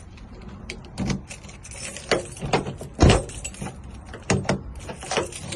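Sharp metal clicks and knocks from a car door lock cylinder and its cover being refitted after rekeying, with keys jangling. There are about half a dozen strikes, the loudest about three seconds in.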